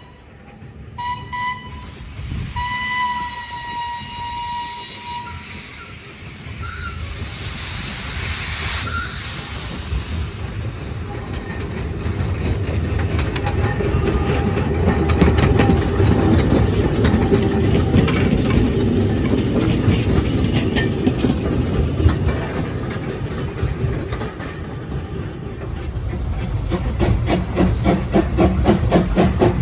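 A narrow-gauge steam locomotive whistles, with a short blast about a second in and a longer one about three seconds in. It then draws near and passes hauling coaches, its running and the wheels on the rails growing loud. Near the end there are rapid, even exhaust beats close by.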